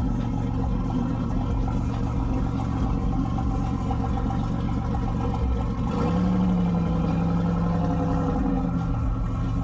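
Car engine running at idle, then held at a higher rev for about two seconds starting some six seconds in, before dropping back.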